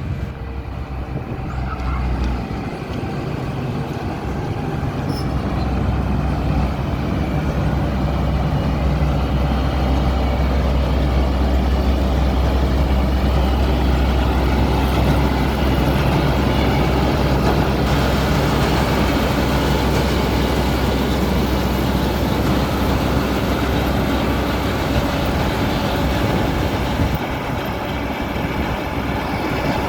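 John Deere 2256 combine harvester's diesel engine running. It picks up from a low idle a few seconds in, runs loud and steady at higher speed, and drops back near the end.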